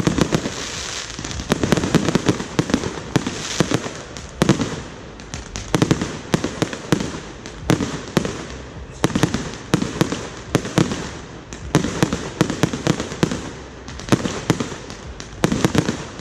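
Fireworks going off in quick succession: a steady run of sharp bangs and crackling, bunched in clusters every second or two, with a brief lull about halfway through.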